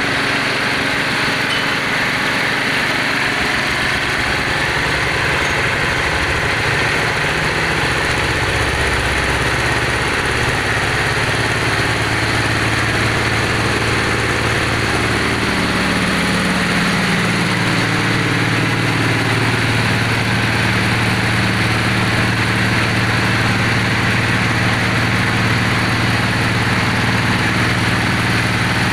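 Engine of a borehole well-drilling machine running steadily. Its low hum shifts higher over several seconds starting about a third of the way in, then holds.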